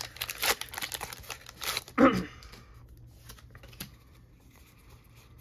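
Foil trading-card booster pack wrapper crinkling and being torn open, with one brief louder sound about two seconds in, then only faint handling ticks.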